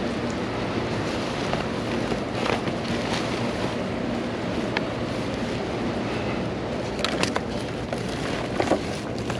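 Steady rain and wind noise on the microphone, broken by a few short clicks and knocks.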